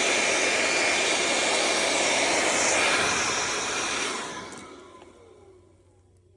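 Norwood LM30 portable bandsaw mill sawing white oak, a loud, steady hiss and whine. About four seconds in it fades away with a falling pitch as the blade winds down.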